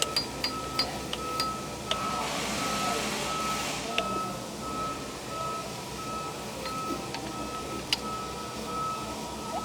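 Vehicle backup alarm beeping steadily, a single high tone repeating about one and a half times a second, with a brief hiss about two seconds in.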